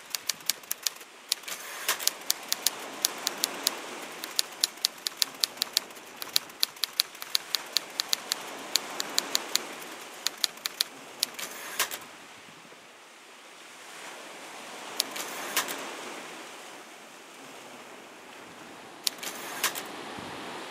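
Typewriter keys clacking in quick runs of sharp strikes, several a second. The strikes are dense for the first twelve seconds or so, then come in two short bursts later on, over a soft steady rushing background.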